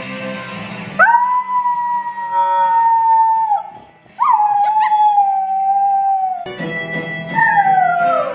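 A dog howling: two long, steady howls of about two and a half seconds each, then a shorter howl that falls in pitch near the end. Background music plays underneath.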